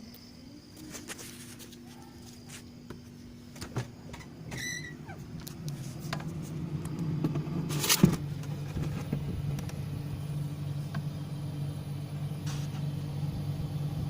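Refrigerator compressor running with a steady low hum, while the system is being charged with LPG as refrigerant. It is joined by scattered clicks and a sharp knock about eight seconds in.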